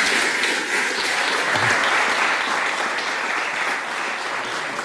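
Audience applauding, a dense steady clapping that slowly dies down toward the end.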